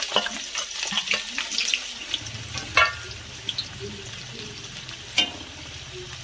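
Sliced onions frying in hot oil in a kadai: a steady crackling sizzle. Two sharp clinks stand out, about three and five seconds in, and a low hum comes in about two seconds in.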